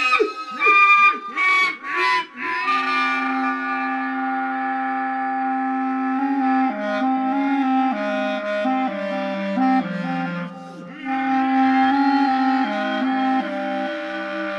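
Clarinet improvisation layered through a loop station. A few short gliding phrases in the first couple of seconds give way to several overlapping held clarinet tones sounding together, their pitches shifting in steps. The music drops briefly about two-thirds of the way through, then the layered tones return.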